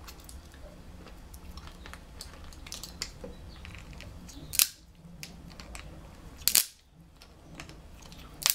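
Snow crab leg shells cracking in a hand-held metal crab cracker: two loud, sharp cracks about two seconds apart, with small clicks and crunches of shell between them.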